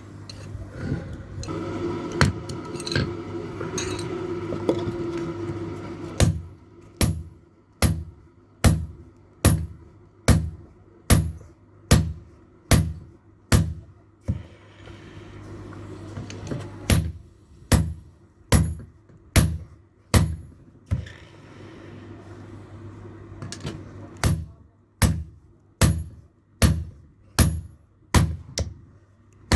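Blacksmith's hand hammer striking steel on an anvil in steady rhythmic blows, a little more than one a second, each with a bright metallic ring. There are three runs of strikes with short pauses between them, over a steady low hum; the first few seconds hold lighter clattering before the hammering starts.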